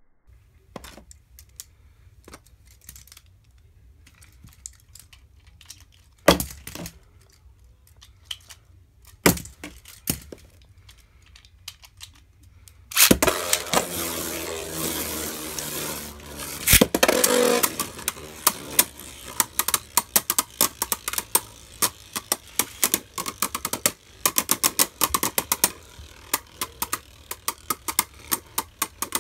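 Beyblade Burst spinning tops in a plastic stadium: a few scattered clicks and knocks, then a sharp clack about halfway through as the tops hit the stadium floor, followed by several seconds of spinning and scraping. After that come rapid light clicks as the spinning tops strike each other and the stadium wall.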